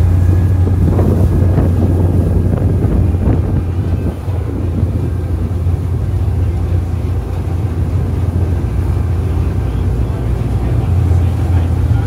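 Ferry's engines running with a steady low drone, with wind buffeting the microphone on the open deck.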